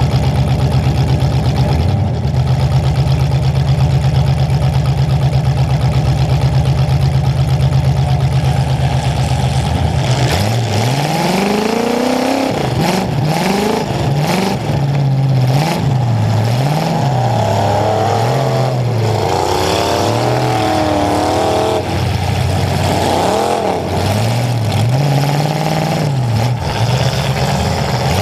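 Demolition derby car's engine idling steadily, then from about ten seconds in revved hard and let off again and again in repeated rising and falling surges.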